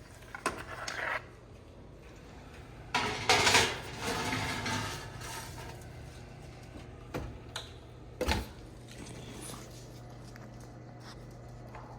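Kitchen clatter of dishes and utensils: a few sharp knocks and clinks, with a louder scraping, rattling stretch about three to five seconds in. A steady low hum runs underneath.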